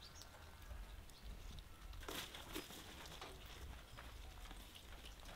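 Faint footsteps swishing through long grass: soft rustling strokes that begin about two seconds in and repeat irregularly.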